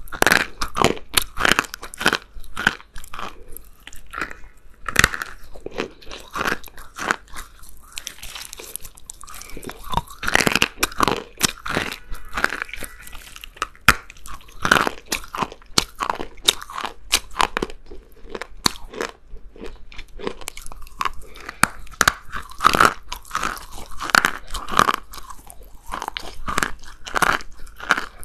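A person biting and chewing crunchy clay: irregular sharp crunches, several a second, thinning out for a few seconds about two-thirds of the way through.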